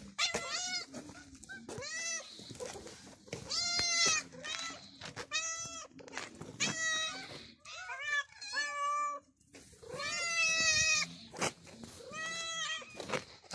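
Domestic cats meowing over and over, one drawn-out rising-and-falling meow after another about every second or so.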